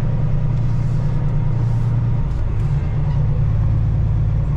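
Loaded dump truck's Caterpillar diesel engine running steadily at low speed, a low drone whose note shifts slightly about two seconds in.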